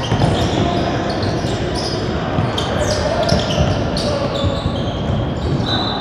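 A basketball dribbled on a hardwood gym floor, with sneakers squeaking in short, high squeaks and voices calling out on the court.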